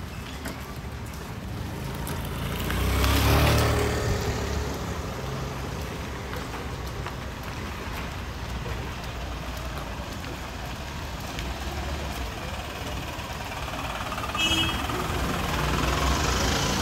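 Street ambience with a motor vehicle passing close by about three seconds in, rising and fading with a low rumble. A brief high tone sounds near the end as more traffic noise builds.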